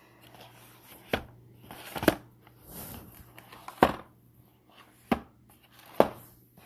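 Cardboard retail box being handled and turned over, with five sharp knocks spaced through the handling and faint rustling of the box between them.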